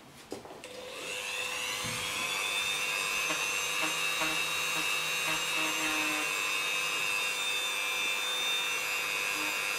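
Dremel rotary tool switched on and spinning up, rising in pitch over the first second to a steady high whine. Its small fine abrasive stone is sanding down the peeling faux-leather film on a boot.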